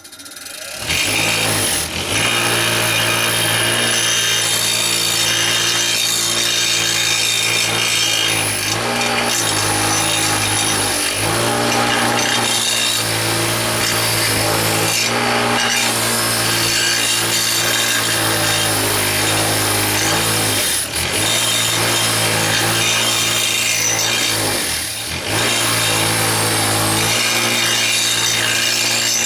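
Power grinder running against metal, cleaning up the broken muffler pieces for welding. It starts about a second in, runs almost without a break, and dips briefly twice in the last third.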